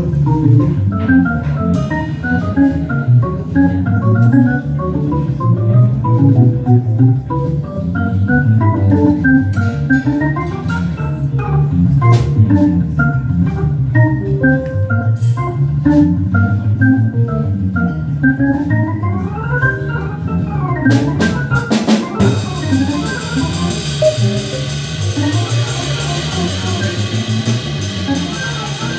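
Hammond B3 organ playing a fast jazz solo line of quick note runs over a low bass line that moves up and down, with a drum kit behind it. About three quarters of the way through, a few drum hits come, then steady cymbal playing continues to the end.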